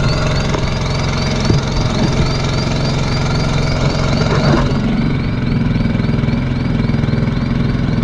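Fishing boat's engine running steadily, heard on board, with a faint high chirp repeating about four times a second above it and a few light knocks in the first half.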